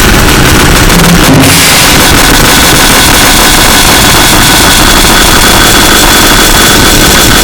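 Harsh noise music: a constant, very loud wall of distorted noise that changes texture about a second and a half in, after which a thin high whine runs through it.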